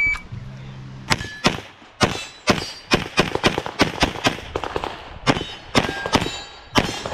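Rapid pistol fire from a Springfield Prodigy, a 2011-style double-stack pistol: about twenty sharp shots, mostly in quick pairs with short pauses between them as the shooter moves from target to target.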